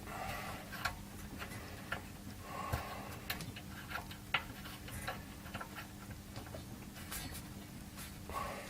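Scattered small clicks and taps of two fuses being handled and fitted back into the power supply's rear-panel fuse holders, over a faint steady hum.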